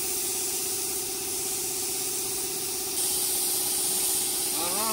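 Gravity-feed paint spray gun hissing steadily as it sprays paint onto a motorcycle side panel, over a steady low hum; the hiss gets louder about three seconds in.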